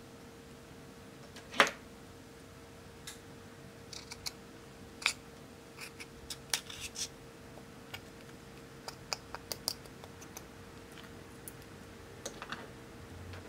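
Sharp clicks and short scrapes of a small metal tool digging pressed powder out of a plastic makeup compact, irregular and scattered, with one louder click about one and a half seconds in. A faint steady hum runs underneath.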